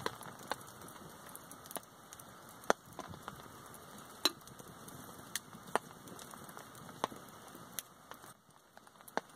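Small twig fire crackling inside a little box-shaped wood-burning stove under a kettle: sharp, irregular pops about once a second over a faint hiss.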